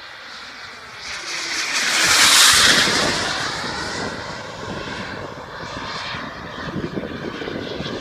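Model jet turbine on a Boomerang Elan RC jet (a JetMunt turbine) running in flight, a hissing whine that swells to its loudest about two and a half seconds in as the jet passes, then eases off a little and holds.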